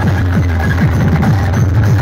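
Loud electronic dance music from large DJ sound-system speaker boxes: a heavy, steady deep bass with rapid falling bass sweeps several times a second.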